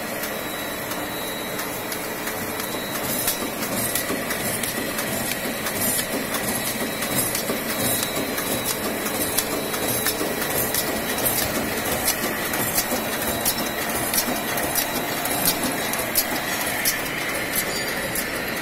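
Automatic paper hole-punching machine running: a steady mechanical hum with a faint high whine, and a sharp clack repeating evenly about every two-thirds of a second.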